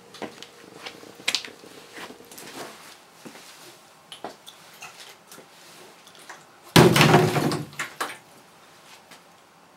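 Footsteps on a concrete floor and small handling knocks of a plastic gas can. About seven seconds in comes a sudden loud noise lasting about a second.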